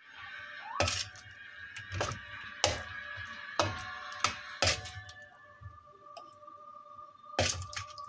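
A metal spoon scraping and clanking against a wide, shallow metal pan while pieces of cooked turkey are stirred, about seven sharp knocks spread unevenly through the stirring.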